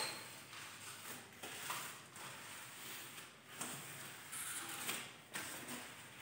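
Irregular light knocks, scrapes and rubbing as things are handled and wiped on a glass TV stand.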